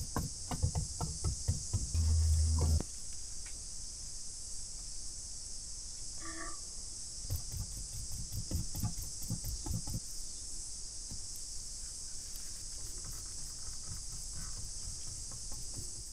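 A steady, high insect chorus throughout, with soft dabbing and tapping from a brush working epoxy into fibreglass cloth to push the air out, in the first three seconds and again around eight to ten seconds in.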